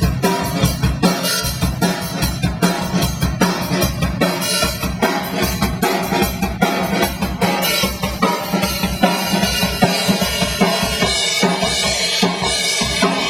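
A full-band rock mix plays back loud, driven by a drum kit with kick and snare hits. It is stopped abruptly at the very end.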